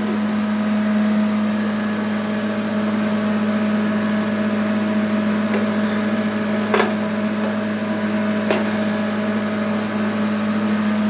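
Steady electrical hum from the powered-up plasma cutting setup, with two sharp clicks partway through as the sheet metal on the cutting table is handled.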